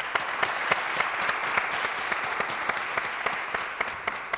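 Audience applauding: a dense, steady wash of clapping with individual sharp claps standing out, easing off slightly near the end.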